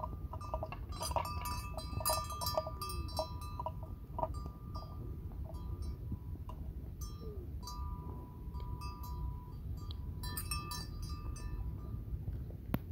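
A livestock bell clanking in irregular clusters of ringing strikes as a water buffalo grazes and moves its head, with a steady low rumble underneath.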